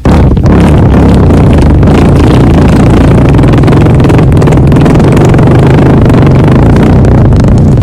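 One long, loud, low-pitched raspy fart that holds a fairly steady pitch.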